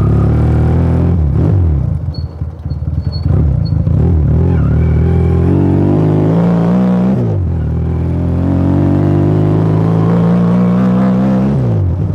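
Motomel Rider 250 motorcycle's engine and exhaust under way. The engine eases off for a moment, then the revs climb twice, each climb ending in a sudden drop as the rider shifts up a gear.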